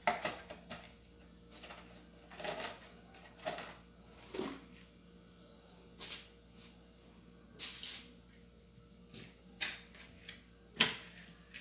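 Kitchen handling sounds: an aluminium ring pudding mould and a plastic plate knocked and set down on a granite counter as the mould is turned out onto the plate, with cloth rustling. About a dozen brief knocks and rustles, the sharpest near the start and near the end.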